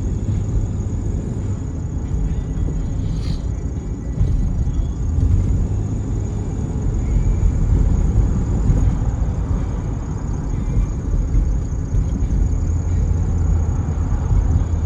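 Car driving, heard from inside the cabin: a steady low rumble of engine and road noise, with a brief click about three seconds in.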